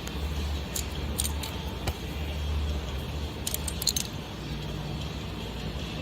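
Light metallic clinks and jingles, like tools or small metal parts being handled, in two short clusters about a second in and about three and a half seconds in, over a steady low hum.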